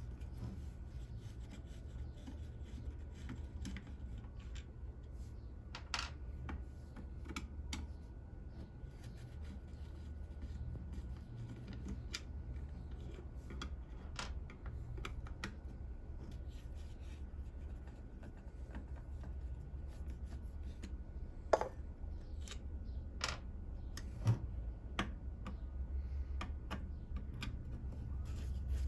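Small scattered clicks and taps of a screwdriver backing out the screws of a Yamaha R6 carburettor's diaphragm top cover, with the parts handled and set down, over a steady low hum. Two sharper clicks come about three-quarters of the way through.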